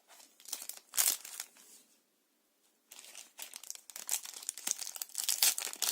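Foil booster-pack wrapper crinkling and being torn open: a few sharp crackles about a second in, a brief pause, then steady crinkling from about three seconds in.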